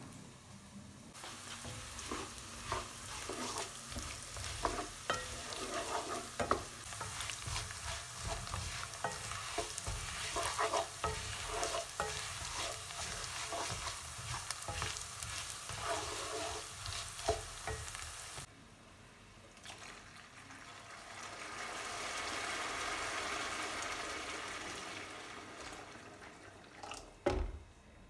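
Rice sizzling in a frying pan as a wooden spoon stirs it, with many small scrapes and taps of the spoon against the pan. Later comes a softer hiss that swells and fades, then a sharp knock of the spoon on a pot near the end.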